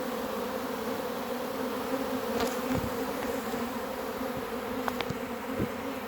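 A swarming honey bee colony: the steady, massed buzzing hum of bees pouring out of the hive and filling the air, with a few brief ticks.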